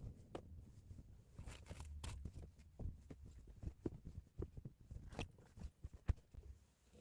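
Faint handling sounds: a scattered series of small clicks, taps and rustles as objects are picked up and moved about.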